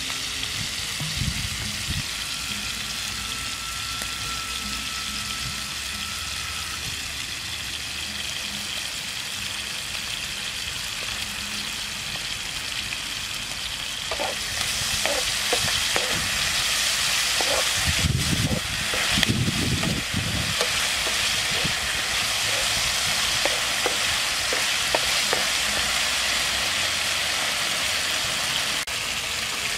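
Chopped meat sizzling in a nonstick frying pan on a portable gas stove. It is a steady hiss that gets louder about halfway through. From then on a spatula scrapes and taps against the pan as the meat is stirred, with a few dull knocks.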